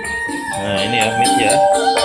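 Music playing through a PA speaker cabinet fed from the mid-range output of the crossover during a sound check. A melody of held notes, getting louder about half a second in.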